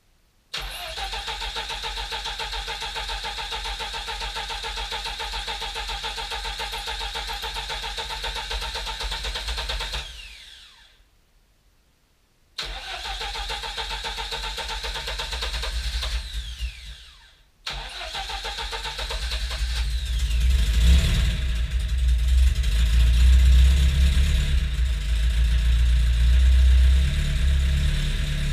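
1992 VAZ 21053's 1500 cc carburetted four-cylinder engine cranked on the starter motor for about ten seconds without catching, then cranked again twice after short pauses. On the third try, about twenty seconds in, it fires and keeps running with a low, wavering rumble.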